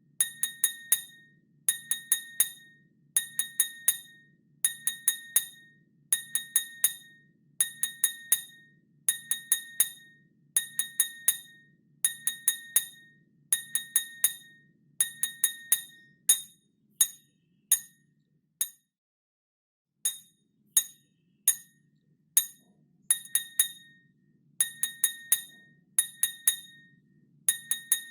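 A metal spoon tapping a drinking glass in quick clusters of four or five clinks, about every second and a half, each clink ringing briefly at a clear high pitch. A little past the middle, the taps thin out to single strikes, then stop for about a second and a half before the clusters resume.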